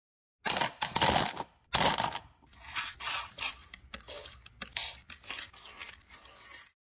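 Rust remover liquid poured into a clear plastic bowl over a handful of small rusty screws, nuts and washers. Two loud bursts come in the first two seconds, then a string of shorter, quieter ones.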